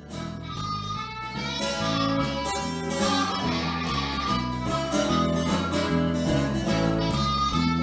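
Blues band playing an instrumental passage: a harmonica plays long, bending notes over a strummed acoustic guitar and a walking bass guitar line.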